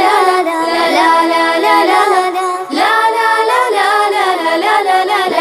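Song: a female voice singing a wordless "la la la" melody over backing music.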